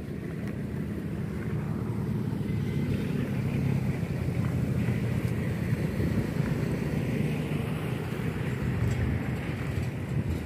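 A large engine running steadily, a low, even drone with no change in speed.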